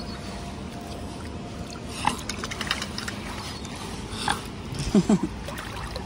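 Lake water lapping and splashing against shoreline rocks in the wind, with a few small splashes. About five seconds in come two short low calls, the loudest sound here.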